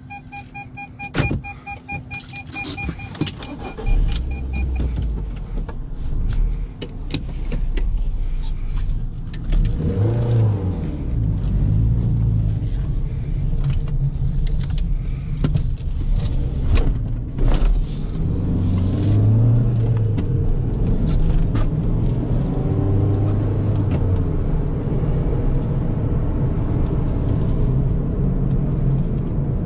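Fiat Multipla pulling away and driving, heard from inside the cabin: the engine note rises through the gears several times, then settles into steady engine and road noise. In the first few seconds a repeating electronic beep sounds, with a few sharp clicks, and stops about four seconds in.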